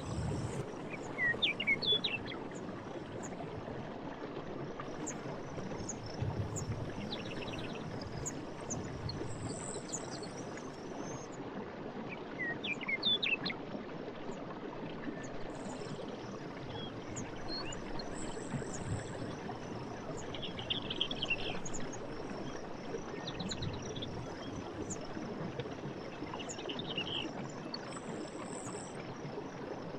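Night-time forest ambience: a steady rushing hiss underneath short rising bird chirps about a second in and again around twelve seconds. Insect trills and high chirps are scattered throughout, with a few brief low rumbles.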